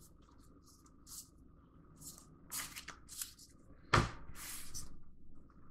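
Stack of game cards being flipped through and sorted by hand, making a series of short papery flicks. About four seconds in comes a sharper snap, then a longer sliding rustle lasting about a second.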